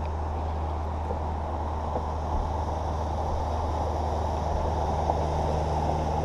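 A bass boat's motor running with a steady low hum, under an even rushing noise.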